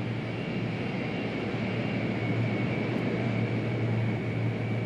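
Aircraft engines running steadily: an even rumble with a thin high whine held on one pitch.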